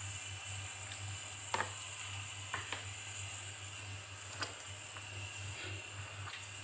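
Hands kneading wheat-flour dough in a stainless steel bowl: soft squishing with a few sharp clicks, the loudest about one and a half seconds in, over a steady background hum.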